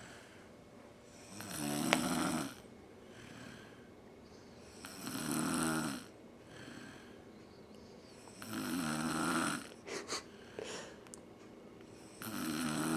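A person snoring in sleep: four rasping snores, each about a second long and about three to four seconds apart, with quiet breathing between them.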